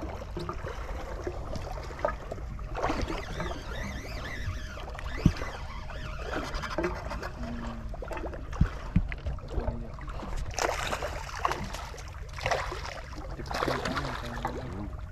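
Sea water sloshing and lapping against a small boat's hull over a steady low rumble, with a few sharp knocks: one about five seconds in and two close together near nine seconds.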